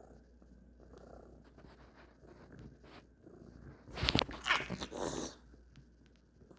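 Domestic cat purring softly and steadily. About four seconds in, a louder, noisy burst lasts just over a second before the purring carries on.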